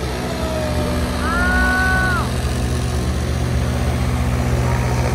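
Stunt boat engines running steadily over the lagoon, a continuous low drone with water noise. About a second in, a voice calls out in one long held shout.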